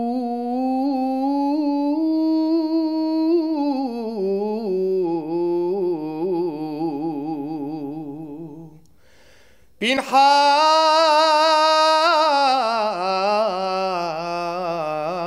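A solo male cantor sings without accompaniment, drawing out long ornamented vowels with rapid trills. Each phrase climbs and then sinks. He breaks off for a breath about nine seconds in, and a second, louder phrase begins about a second later.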